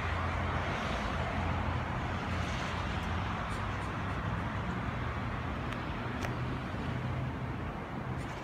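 Steady urban background noise: a continuous hiss with a low hum underneath and a few faint clicks.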